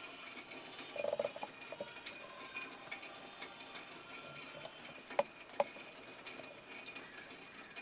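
High, thin chirps and squeaks scattered irregularly over a steady outdoor hiss, with a short buzzy rattle about a second in and two sharp clicks a little after five seconds.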